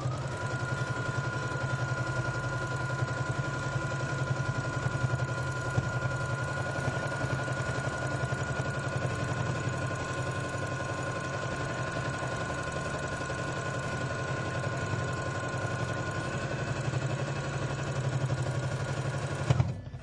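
Brother electric sewing machine running steadily, stitching a long continuous seam around a quilted fabric piece: a motor whine that rises as it starts, over rapid needle strokes. It stops abruptly just before the end.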